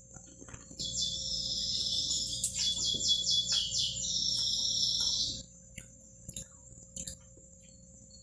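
A high-pitched buzzing animal call that starts about a second in, lasts about four and a half seconds with a fast pulsing stretch in the middle, then stops and starts again at the very end. Faint clicks and knocks sound under it.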